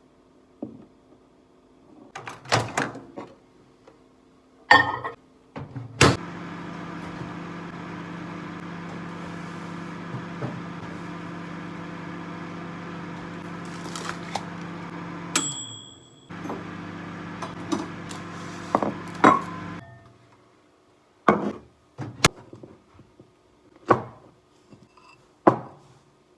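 An electric appliance running with a steady hum for about nine seconds, cutting out briefly with two short high tones, then running a few seconds more. Sharp knocks and clicks come before and after it.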